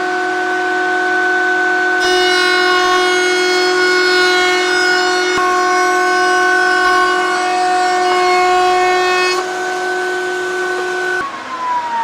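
Router motor in a router table running with a steady high whine. From about two seconds in, a bit cutting wood adds a rougher, louder layer for some seven seconds. Near the end the motor is switched off and its pitch falls as it winds down.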